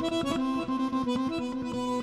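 Piano accordion playing a quick melody in traditional style, the notes held with the reedy, sustained sound of the bellows and changing rapidly in short runs.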